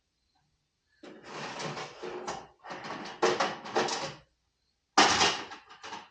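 A drawer being opened and rummaged through for flat washers, with hardware clattering for about three seconds, then a drawer shut sharply about five seconds in.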